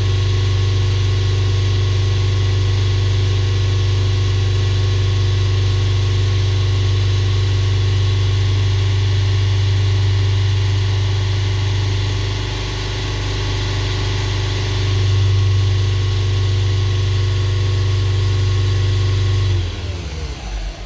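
VW T5 van engine idling steadily while it warms up to operating temperature. The level dips slightly about twelve seconds in, and the engine sound drops away near the end.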